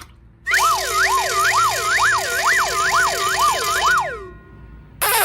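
Siren sound effect: two interleaved tones sweeping up and down about twice a second for roughly four seconds, then fading out. A different noisy sound starts just before the end.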